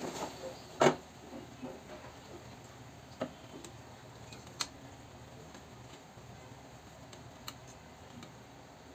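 Sparse light clicks and taps of hands folding bottle gourd leaves around a spiced fish on a ceramic plate, with one sharper click about a second in.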